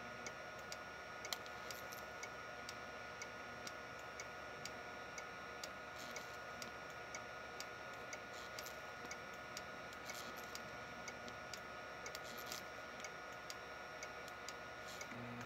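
Homemade flyback transformer circuit running: a steady faint high whine with irregular sharp ticks, about two or three a second.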